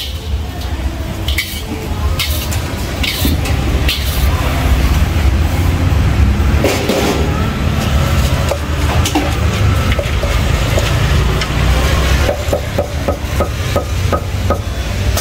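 Busy street-food stall ambience: a steady low rumble under scattered clicks and clatter of kitchen utensils and dishes, with a quick run of clicks near the end.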